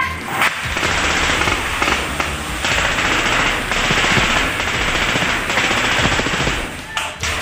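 Rapid automatic rifle fire, starting about half a second in and going on almost without a break until it stops shortly before the end.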